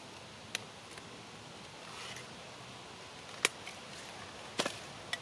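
A few sharp clicks and taps of the camera being handled, over a faint steady hiss.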